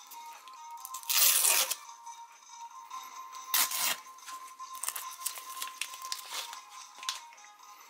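A small paper envelope being torn open to get at the collectible cap inside: two loud rips, about a second in and again about three and a half seconds in, with paper crinkling and rustling in between. Background music plays throughout.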